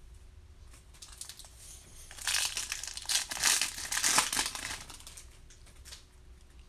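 Foil trading-card pack wrapper crinkling as it is torn open by hand, starting about two seconds in, loudest in the middle and dying away about five seconds in.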